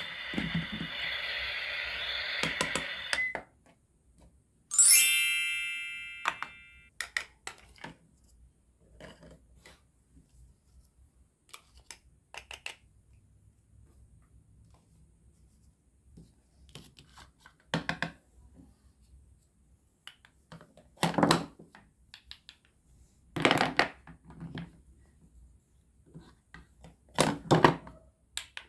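A toy cooker's steady electronic cooking sound runs and stops about 3 seconds in. A bright chime rings out about 5 seconds in and fades over a couple of seconds. After that come scattered light clicks and knocks of plastic and wooden toy food and utensils being handled, with several louder knocks in the second half.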